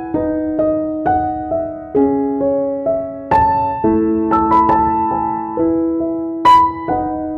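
Background music: a gentle piano melody of single struck notes over held chords, each note fading after it is played.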